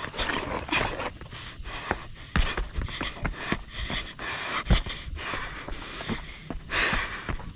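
A trail runner panting hard while descending fast, with quick footfalls thudding and scuffing on rock and loose gravel about twice a second.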